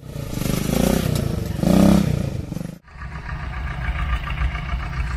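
Motor vehicle engine revving loudly for a couple of seconds. After an abrupt cut, an engine runs more steadily with a low rumble.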